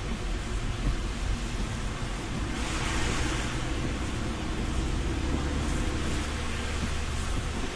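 Car cabin sound while driving on a wet road: a steady low rumble with tyre hiss from the wet asphalt. The hiss swells for a second or two about a third of the way in.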